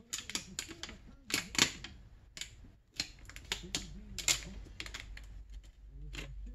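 Paper release liner being peeled and handled off a roll of aluminum foil tape, giving an irregular run of crisp crackles and crinkles.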